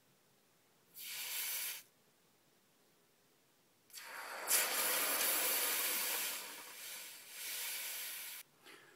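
Hot silver steel rod hissing as it is quenched in a cup of water: a brief hiss about a second in, then a longer, louder one from about four seconds in. The longer hiss is the full quench once the tip has tempered to blue.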